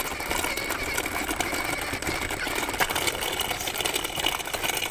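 Electric RC trail truck crawling over gravel while towing a loaded trailer: a steady motor and gear whine over crunching, crackling tyres on the stones.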